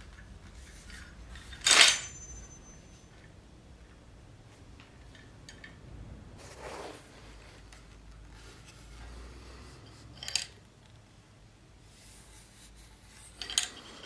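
A steel sword handled: a sharp metal clank about two seconds in, with a short high ring after it, then a few lighter metallic clicks and taps.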